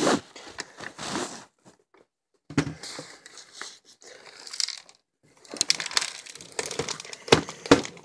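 Handling noise while a Shark vacuum is taken apart: rustling, scraping and sharp clicks of plastic parts, screwdrivers and screws being moved about. There are two short breaks, and the clicks come thickest near the end.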